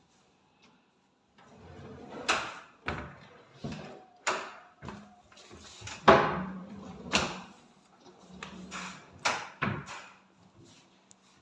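Modular kitchen cabinet doors and drawers being opened and shut: a run of about nine knocks and thuds, irregularly spaced, with rustling and sliding sounds in between.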